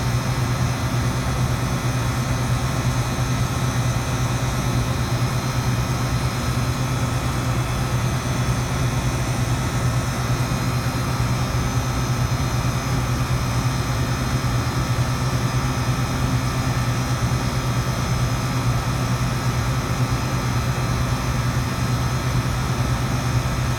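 Walk-in freezer's condensing unit running steadily, its compressor and fan giving a constant low hum. The system is back in operation after its receiver and filter drier were replaced and it was recharged.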